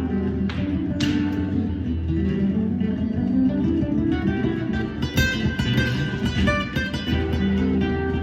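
Acoustic guitar music, plucked notes in quick succession over sustained lower notes, growing busier about halfway through.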